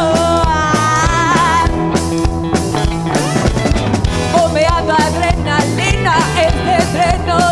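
A live rock-and-roll boogie band playing: a woman singing lead over electric guitars, electric bass and a drum kit, at a steady rhythm.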